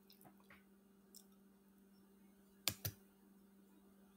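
Near silence over a faint steady hum, broken by a few light clicks and a sharp double click about two and a half seconds in.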